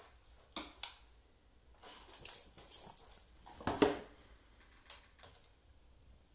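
Vizsla dog pawing and scrabbling at its padded bed and the wood floor while hunting a bug: a string of separate thumps and rustles with light jingling of its metal collar tags, the loudest thump about halfway through.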